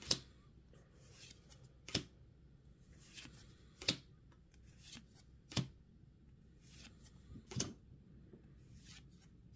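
Pokémon trading cards being flipped through one at a time, each card slid off the stack with a short, sharp snap about every two seconds, five in all, with fainter card rustles between.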